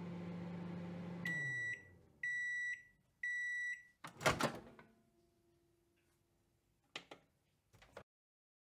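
Microwave oven finishing its run: its low hum winds down as the timer reaches zero and it beeps three times, then a loud clunk as the door opens. Two short clicks follow near the end.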